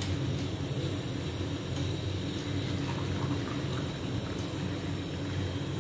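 Water dripping and splashing back into a pan as a wire skimmer lifts blanched chopped spinach out of hot water, over a steady low hum.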